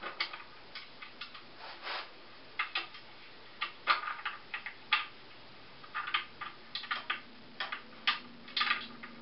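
Irregular light clicks and taps of metal hardware as a bolt is worked into a Razor Pro scooter deck's folding mechanism.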